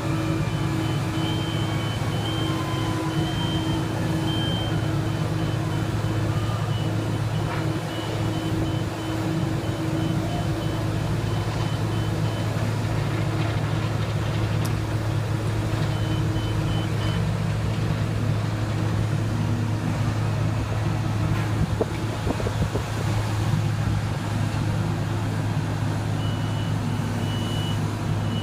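Heavy construction equipment's diesel engine running steadily with a deep hum, while a high-pitched backup alarm beeps on and off.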